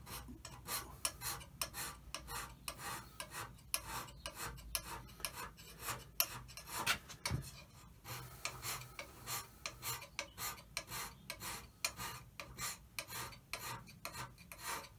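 Hand scraper being pushed along the cast-iron bed ways of a Holbrook tool-room lathe in short rasping strokes, about two or three a second, with a brief pause about halfway through. This is light surface scraping of the bearing face to a smooth finish, not digging oil pockets.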